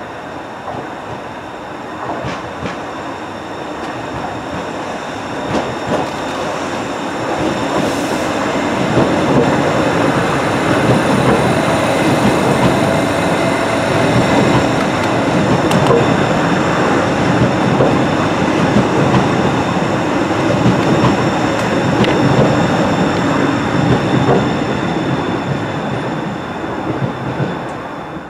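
Docklands Light Railway CAF B23 Stock train passing through a station: its rumble builds over the first several seconds, stays loud for about fifteen seconds as the cars run by, then drops away at the very end, with a few sharp clicks from the wheels along the way.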